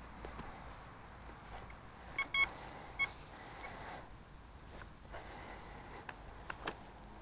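Desert Gold metal detector giving a faint target signal over a buried 2-euro coin: two quick high beeps about two seconds in and a third just after, its speaker taped over. Distant traffic hums underneath, and a couple of sharp clicks come near the end.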